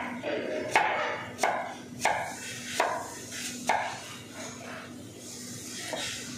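Knife chopping an onion on a plastic cutting board, dicing it: sharp knocks of the blade on the board roughly every two-thirds of a second, thinning out in the last couple of seconds.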